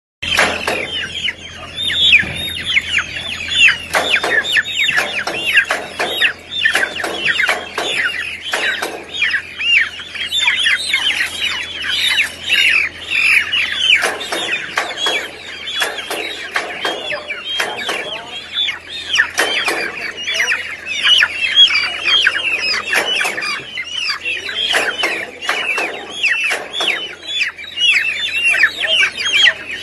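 A flock of chickens hung upside down in shackles, many squawking and calling at once in a dense, unbroken chorus of high calls falling in pitch, over a steady low hum.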